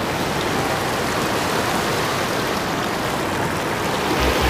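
Loud, steady rush of water pouring out of a lake spillway.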